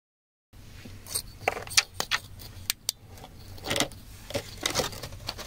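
Metal digging tool tapping and scraping against stone and gritty wet soil: a quick run of sharp clicks and clinks, starting about half a second in, over a low steady hum.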